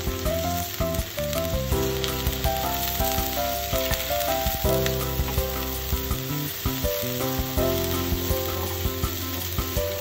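Slices of ostrich liver sizzling steadily as they sear in olive oil in a frying pan over high heat, being turned over partway through cooking. Background music plays over it.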